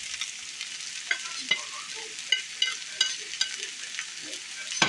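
Sliced potatoes sizzling steadily in a frying pan as fried onions are scraped off a plate into it with a spatula, the spatula tapping sharply against the plate and pan rim about half a dozen times, a few of the taps ringing briefly.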